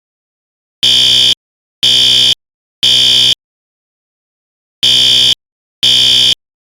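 System Sensor SpectrAlert Advance fire alarm horn sounding the Code-3 temporal pattern: three half-second blasts about a second apart, a pause, then the first two blasts of the next group. It is a loud, high buzzing horn tone, bass-boosted so the low buzz of its modulation comes through.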